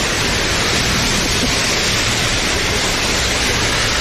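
Heavy tropical rain pouring down, a loud, steady hiss.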